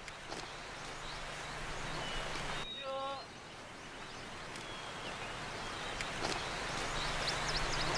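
Outdoor rural ambience: a steady hiss that slowly swells, with a low hum and a few clicks, a short pitched call about three seconds in, and faint bird chirps near the end.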